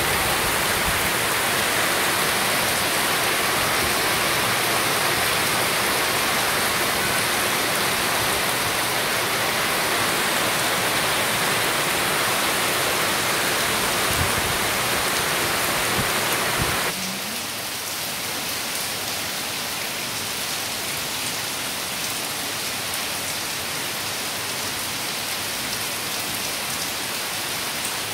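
Heavy rain falling steadily on paving and roofs, a dense even hiss. About seventeen seconds in it abruptly becomes quieter and lighter-sounding, then carries on steadily.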